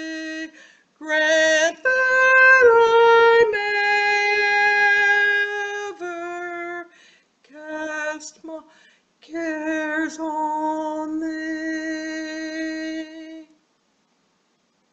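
A woman singing a hymn unaccompanied, in slow, long-held notes with short breaks between phrases. The singing stops about a second and a half before the end.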